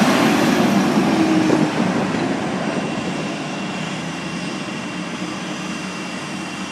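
Ambulance driving past on a call, its loud engine and road noise fading as it pulls away after about two seconds.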